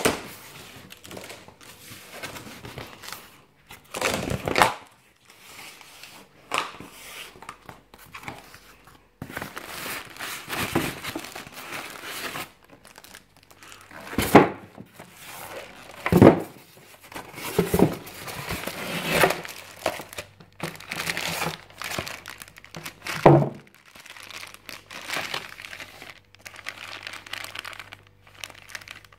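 Packaging being handled: plastic wrap crinkling and rustling while cardboard and styrofoam packing are moved, in irregular bursts with a few dull knocks.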